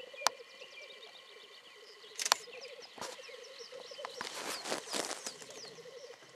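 Lekking black grouse males giving their continuous low bubbling coo, several birds overlapping, with harsh hissing calls about two seconds in and again around four to five seconds. Two sharp clicks stand out, one near the start and one at about two seconds.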